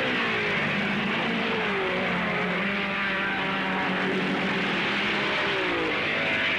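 Engines of 1950s Grand Prix racing cars passing at speed, several engine notes at once, some falling in pitch as cars go by.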